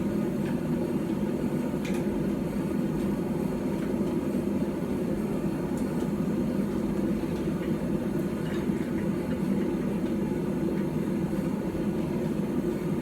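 Forge running with a steady low roar, with no hammer strikes.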